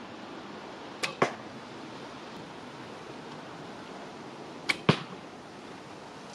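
Two arrows shot from a laminated asymmetric Mongolian horse bow, one about a second in and one near five seconds. Each shot is a sharp crack followed a fraction of a second later by a second, louder crack.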